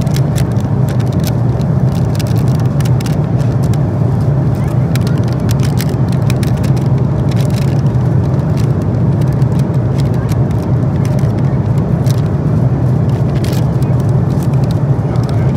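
Steady low roar of an Airbus A330-200 airliner cabin in flight, with scattered crinkling of a plastic food wrapper being handled close by.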